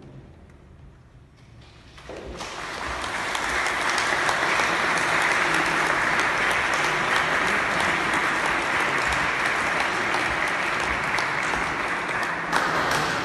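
Audience applauding, starting about two seconds in, swelling quickly and then holding steady.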